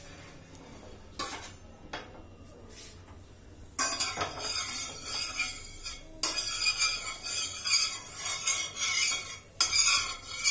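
Metal spatula scraping back and forth over a flat metal tawa, spreading oil across the griddle. It starts about four seconds in, after a couple of light knocks, and goes on in rough strokes with brief pauses.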